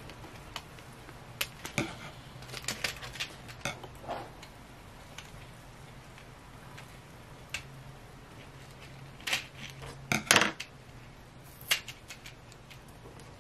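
Scissors snipping at a small clear plastic package, with the plastic clicking and crackling as it is handled: scattered sharp clicks, with a louder cluster about nine to ten seconds in.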